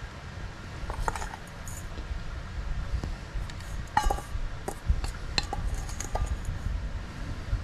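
Metal spoon clinking and scraping against a stainless steel bowl as a curing-salt mix is spooned out, in scattered sharp clinks, the sharpest about a second in and about four seconds in, over a low steady rumble.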